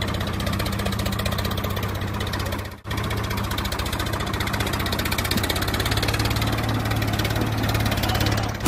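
Tractor engine running steadily with an even, rapid firing beat. The sound cuts out briefly about three seconds in, then carries on.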